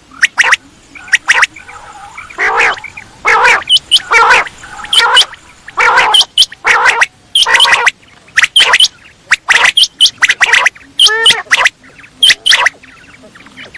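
Quail calling over and over: a dense run of short, loud, sharp calls with a few quick rattling trills, played as a lure recording to draw quail in.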